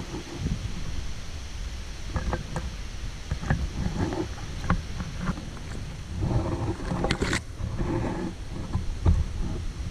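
Wind buffeting the camera microphone as a fluttering low rumble, with scattered light clicks and ticks; the sharpest click comes about seven seconds in.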